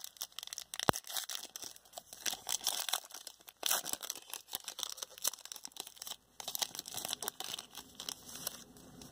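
Foil wrapper of a Prizm basketball hanger pack being torn open and crinkled by hand: many small irregular crackles and rustles, with one sharper click about a second in.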